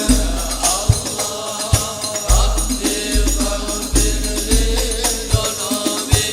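Devotional percussion ensemble: deep frame-drum beats every half-second to a second, with tambourine-like jingles, under a choir of voices holding long sung notes between verses of the salawat.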